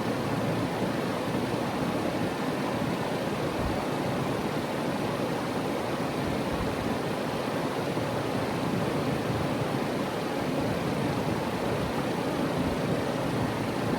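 Trane XR14 3-ton heat pump outdoor unit running steadily, its condenser fan and scroll compressor making an even whooshing hum.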